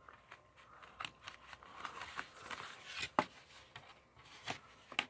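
Plastic Blu-ray and DVD cases being handled and pressed together: scattered sharp plastic clicks and a stretch of rubbing, sliding rustle, the loudest click about three seconds in.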